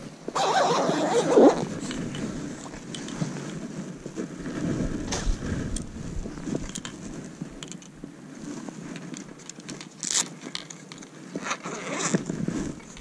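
Fabric rustling and scraping as a telescopic fishing rod is drawn out of its padded cloth sleeve, loudest in the first second and a half. Then quieter handling noise with scattered sharp clicks as the rod is extended and its tip cover pulled off, the sharpest click about ten seconds in.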